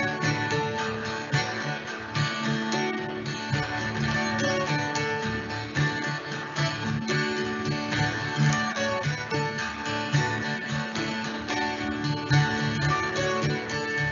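Background music led by acoustic guitar, plucked and strummed at a steady rhythm.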